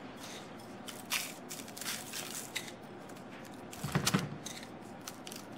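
Hands rubbing a salt, pepper and sugar seasoning onto raw pork ribs on a parchment-lined tray: faint rustling and scattered light ticks, with a soft thump about four seconds in.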